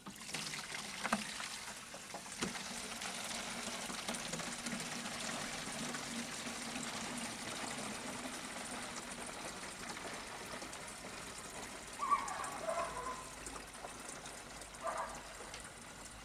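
Engine coolant running out of a Caterpillar 3412 diesel engine in a steady trickle into a collecting container. The flow weakens a little near the end, and a couple of short higher sounds come through.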